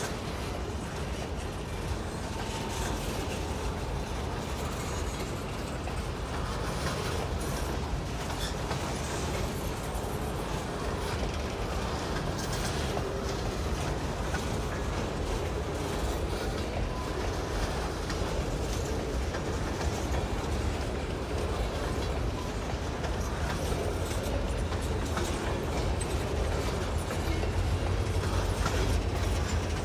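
Freight train cars rolling through a grade crossing, the wheels clacking over the rail joints with a steady rumble that grows a little louder near the end.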